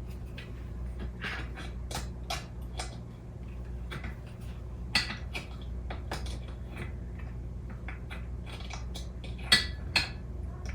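Irregular plastic and metal clicks and knocks as a stroller's rear wheel is handled and tried against the frame, the sharpest knocks about five seconds in and twice near the end, over a steady low hum.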